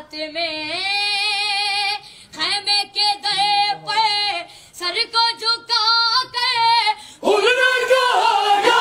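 A boy singing a qasida without accompaniment in a high voice, in short phrases with long held notes that waver in pitch. Near the end the singing gives way to a crowd of voices.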